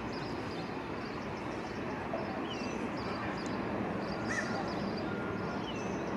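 Birds calling outdoors, short chirps and a few quick falling whistles scattered through, over a steady rushing background noise.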